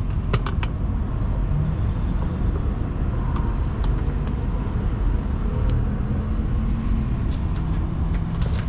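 Steady low rumble of an idling vehicle engine, with a few sharp metallic clicks in the first second and scattered light ticks later, as of tools or parts being handled.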